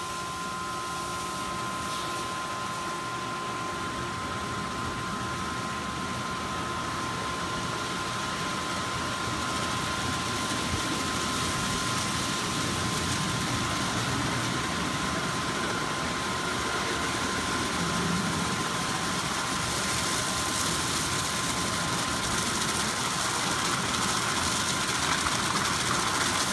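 Ryko Soft Gloss Maxx rollover car wash running, its foam brushes spinning against a car. There is a steady mechanical hum with a constant high whine, and a spray hiss that grows louder in the last few seconds.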